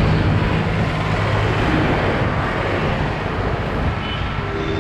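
Road traffic: motor vehicle engines running past with a steady hum and rush, and a vehicle horn sounding briefly near the end.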